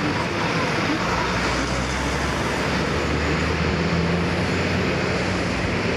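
Airbus A380-800 jet engines running at taxi power as the airliner taxis past: a steady rush of engine noise with a low drone that strengthens from about a second in.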